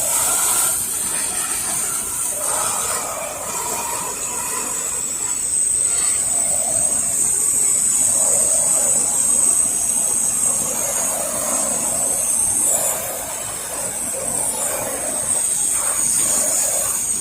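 Soft-wash spray nozzle hissing steadily as it sprays a 1% cleaning mix onto the house siding.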